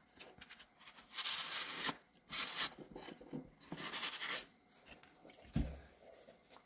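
Magic eraser (melamine foam sponge) scrubbing the unglazed ceramic surface of a spoon rest to clean off underglaze, in several rasping, hissing strokes. A soft thump near the end as the dish is set down on the table.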